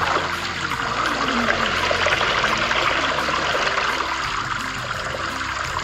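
A steady rush of running water, easing off near the end, with soft background music beneath.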